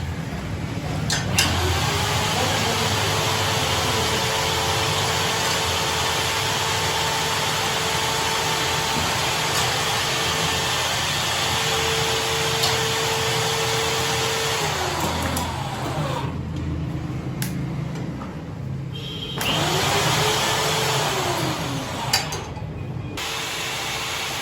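Electric motor of a metal lathe spinning up, running steadily with a constant hum, then winding down. It is started and stopped again briefly near the end.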